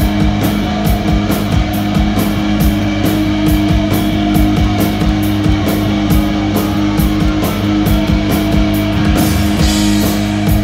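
Live rock band playing loud: electric guitar chords over a drum kit, with steady cymbal strokes about three a second and a brighter crash near the end.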